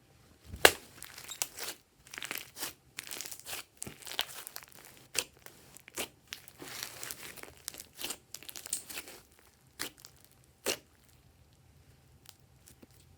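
Glossy slime being squeezed and stretched by hand, making irregular sticky crackles and sharp clicks. The loudest click comes just under a second in, and another strong one comes near the end.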